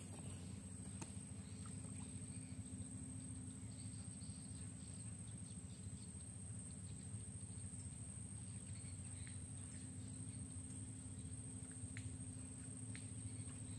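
Steady outdoor ambience of insects: a constant high-pitched insect drone over a low steady hum, with a few faint chirps and two brief ticks near the end.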